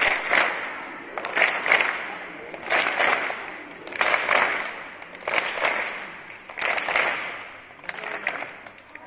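A large group of schoolchildren and adults clapping together in a steady rhythm: a burst of two quick claps about every second and a quarter.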